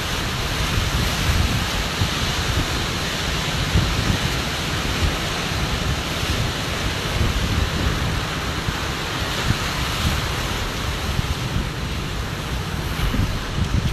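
Wind blowing across the microphone: a steady rushing hiss with an uneven, gusting low rumble.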